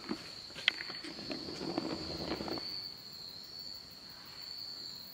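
Steady, high-pitched insect drone holding one unbroken tone, with a sharp click under a second in and a short stretch of muffled rustling in the middle.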